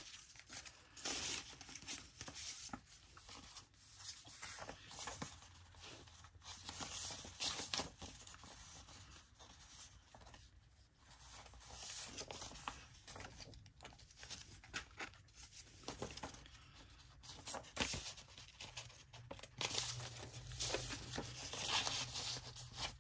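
Paper being handled, rustled and torn in short, irregular strokes, as in craft paper work on a journal cover.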